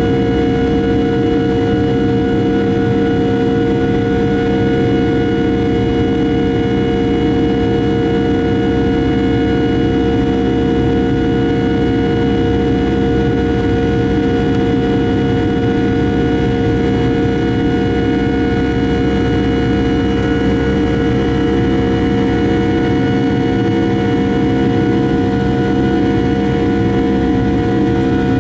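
Boeing 757-300 jet engines heard from inside the cabin during the climb after takeoff: a steady, even drone with a constant whine of several tones over a low rumble.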